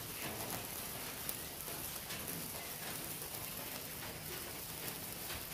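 Hand-held sparklers fizzing and crackling steadily, with scattered faint pops.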